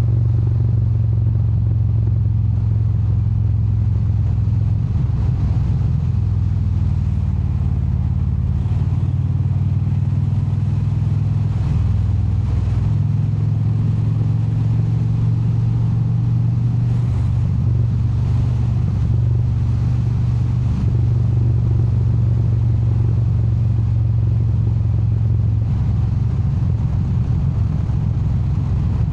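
Indian V-twin cruiser engine running steadily while the motorcycle is ridden, its low note shifting to a new pitch several times as the revs change.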